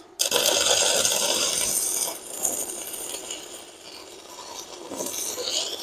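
Stick-welding arc from a Uyustools 160 A IGBT inverter welder burning a No. 10 electrode at full current: a crackling sizzle that strikes up sharply just after the start, eases off through the middle and builds again near the end.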